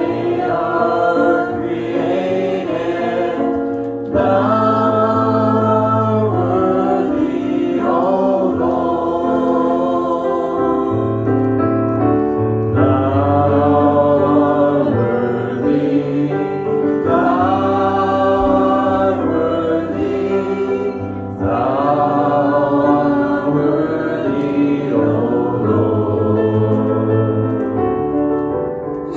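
A small worship team of men's and women's voices singing a gospel chorus together in long held phrases, accompanied by a digital keyboard.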